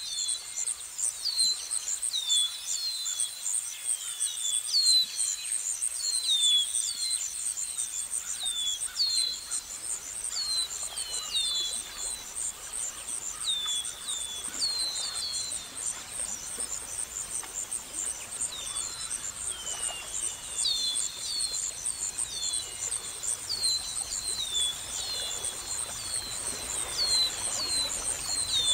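Nature ambience: a steady high-pitched insect trill with short falling bird chirps, repeated in clusters of two or three.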